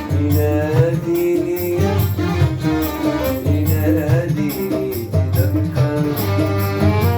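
Arabic-style music: a melody carried over a steady hand-percussion rhythm and a strong bass line.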